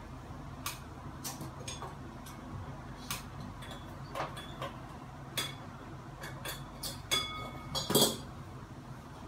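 Scattered clicks and metallic clinks from the blades and metal hardware of a Hunter Pacific Aurora ceiling fan being handled during installation. The clinks come irregularly, several a second at times, and two louder ringing clinks come near the end.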